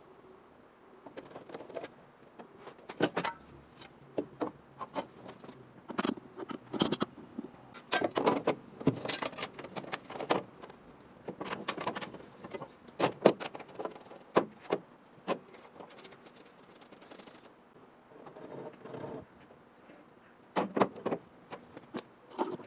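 Irregular sharp clicks and knocks, like tools being handled and tapped against sheet metal, over a steady high-pitched chirr.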